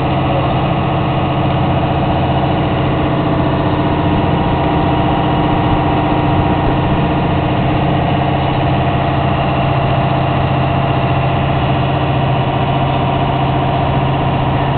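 A motorboat's engine running steadily under way, an even note with a few held tones that does not change.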